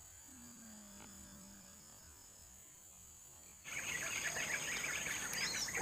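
Very quiet at first, with a faint low falling tone, then an abrupt cut to loud forest ambience: a steady high-pitched insect drone with dense chirping of insects and birds.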